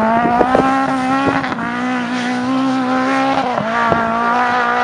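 Rally car engine at high revs as the car accelerates away, holding a steady high note that breaks briefly at gear changes about one and a half and three and a half seconds in.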